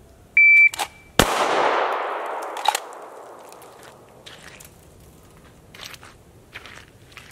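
An electronic shot timer gives one short beep, and under a second later a single handgun shot cracks and echoes away over about two seconds: a draw and shot on the timer's start signal. A sharp clink follows about a second and a half after the shot, then light scattered footsteps.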